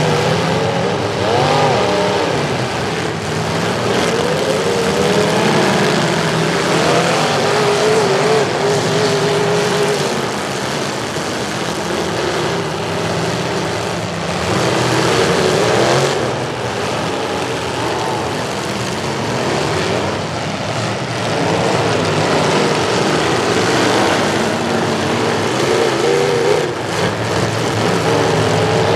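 Engines of several demolition derby pickup trucks revving hard, their pitch rising and falling again and again, with metal crunching as the trucks ram one another.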